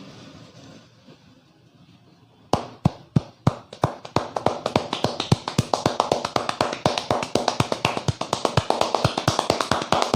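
Sharp, rapid slaps and claps of hands on a head: a barber's percussive head massage. It starts suddenly about two and a half seconds in, a few strikes a second at first, then quicker and steady. Faint street background before it.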